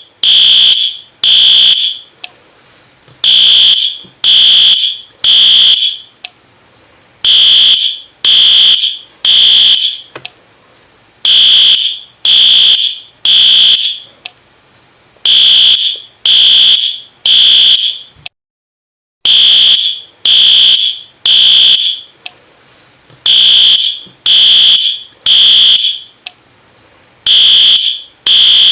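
Fire alarm sounding the temporal-three evacuation pattern: groups of three loud, high-pitched beeps a second apart, each group followed by a short pause, repeating steadily. The signal cuts to silence for under a second about two-thirds of the way through.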